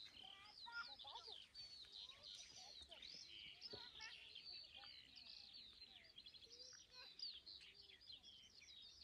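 A faint chorus of many songbirds singing at once, short chirps and whistles overlapping without a break.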